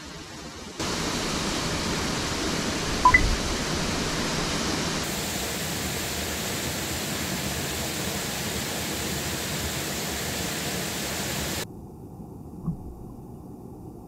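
Steady rushing of water spilling over a small concrete weir into a creek pool, with a short ding-like tone about three seconds in. Near the end the sound drops suddenly to a quieter, muffled rush of water, as heard from an underwater camera.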